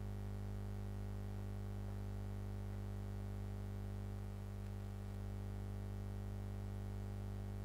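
Steady low hum, several unchanging tones with faint hiss under them, holding level throughout with no other sounds.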